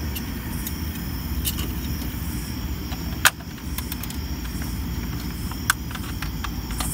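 A few sharp clicks and a light rattle of drill bits in a plastic bit case being handled, the loudest click about halfway through, over a steady low background rumble.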